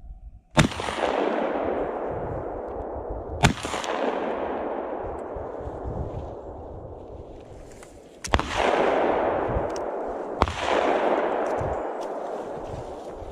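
TOZ-34 12-gauge over-under shotgun firing slugs, four sharp shots a few seconds apart, each followed by a long rolling echo that dies away over about two seconds.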